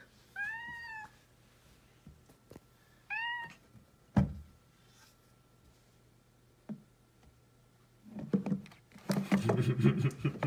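Hungry orange tabby kitten meowing twice, short rising-then-falling meows near the start and about three seconds in, demanding more food. A single thump follows, and near the end there is loud rustling and clattering as the kitten pokes into a cupboard holding a plastic container of dry cat food.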